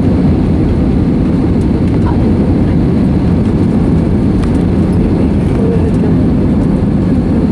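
Airbus A320neo cabin noise heard from a passenger seat: a steady, loud low rumble of the jet engines and airflow, with no sudden changes.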